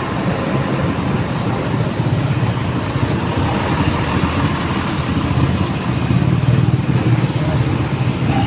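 Engine of a large road vehicle running close by: a steady low drone that grows a little louder past the middle.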